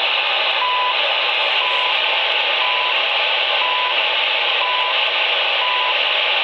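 Icom IC-R75 communications receiver tuned to the CHU Canada time station: steady shortwave static with a short 1 kHz beep once a second, six second-pulses in all. The repaired receiver is powered up and receiving.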